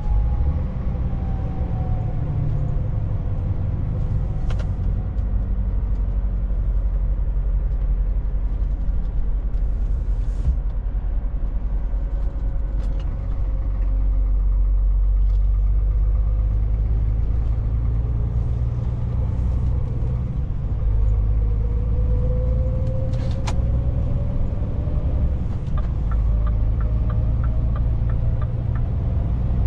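Scania S500 truck's 13-litre straight-six diesel running under way, heard inside the cab as a steady low rumble with road noise. A faint whine falls in pitch over the first several seconds and rises again through the second half as the truck slows and picks up speed, and a short run of light ticks comes near the end.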